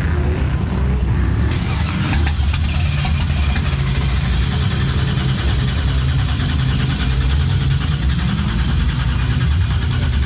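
Car engine running loudly with a steady low rumble; about a second and a half in, a loud steady hiss joins it.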